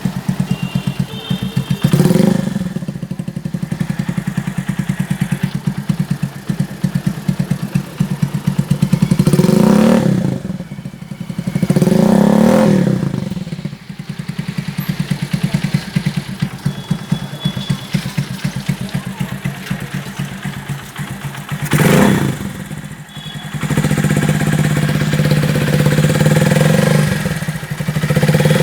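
Suzuki GS150 motorcycle's single-cylinder four-stroke engine running, blipped up in short revs several times between stretches of idle and held at higher revs near the end.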